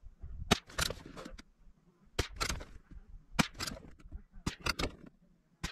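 A shot from a CZ 452 Varmint bolt-action rifle in .22 Magnum (.22 WMR), firing a Remington 40-grain round, among several sharp clicks and knocks.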